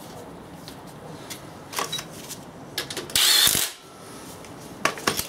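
Tools working on a diesel engine's timing-belt end: scattered metal clicks and taps, with one loud half-second burst of tool noise about three seconds in.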